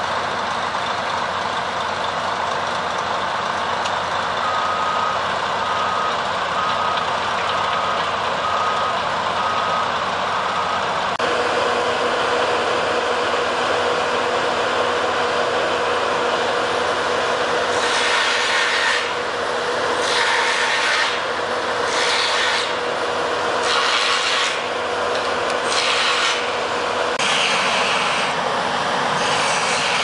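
Heavy construction equipment running steadily. A backup alarm beeps about once a second for several seconds. Later comes a steady hum, and from about two-thirds of the way in, loud hissing, rasping bursts repeat every second or two.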